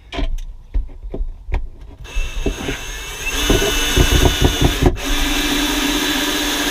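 Ryobi cordless drill/driver driving a mounting screw into wood. A few light clicks and knocks come first; the drill starts about two seconds in, gets louder, stops for an instant near five seconds, then runs on steadily at one pitch.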